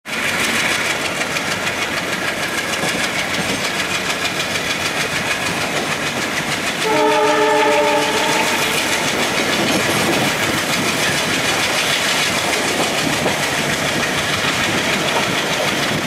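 Passenger train running, with a steady rush and wheel clatter and the ALCO WDM-3D diesel locomotive chugging ahead. About seven seconds in, the locomotive's horn blows once, a chord of several notes lasting about two seconds.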